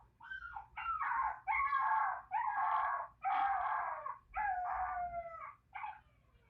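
Puppy crying: a run of high whining cries, starting as short yelps and stretching into longer drawn-out whines held for about a second, the longest near the end sliding down in pitch, then one last short cry.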